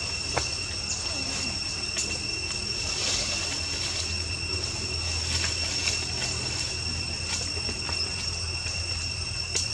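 Steady, high-pitched insect drone, two held tones without a break, with a few faint clicks and a low hum beneath.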